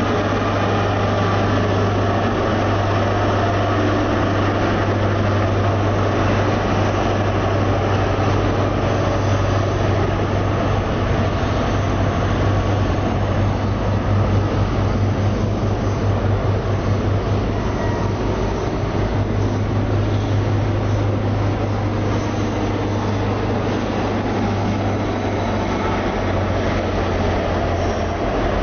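Train engine running steadily with a deep, even hum.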